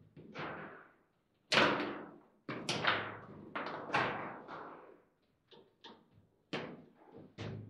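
Table football (foosball) in play: an irregular run of sharp knocks and clacks as the ball is struck by the plastic players and hits the table, with rods banging, the loudest strike about one and a half seconds in.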